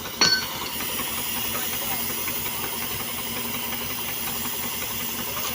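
Steady, loud hissing rush from rail thermite-welding work, beginning with a sharp clank or pop about a quarter second in.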